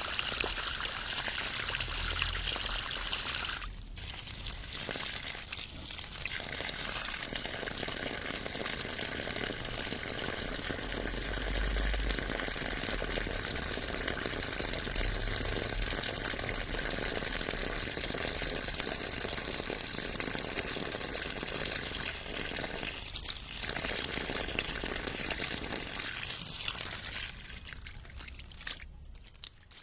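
Water rippling and trickling in a steady, continuous rush, with brief dips around 4 s and 23 s, fading out near the end.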